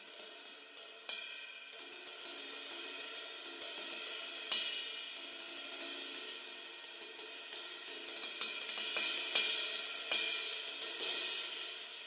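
Turco Sanctus series B20 bronze cymbals struck repeatedly with drumsticks, their ringing wash building up. The hits are loudest just past the middle, and the cymbals ring out and fade near the end.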